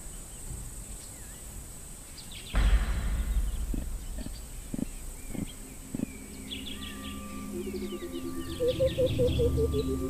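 Birds chirping in quick short calls over soft background music with long held notes that comes in about halfway. A low rumble starts suddenly a few seconds in, with a few dull knocks after it.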